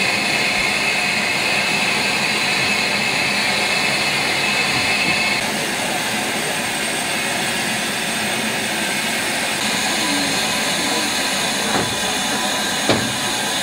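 Steady, loud hiss of escaping steam from the standing LMS Jubilee-class steam locomotive Galatea, with a single sharp click near the end.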